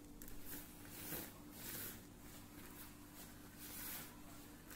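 A hand rubbing and working flour in a plastic mixing bowl: soft, dry swishes about once a second, over a faint steady hum.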